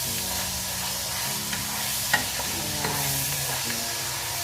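Pork pieces frying in hot oil in a pan, a steady sizzle while they are stirred, with a few sharp ticks through it.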